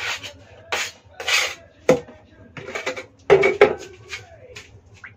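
Painting tools being handled and picked up: a few short scrapes, then a cluster of clinks and knocks, as of metal and hard items clattering against each other.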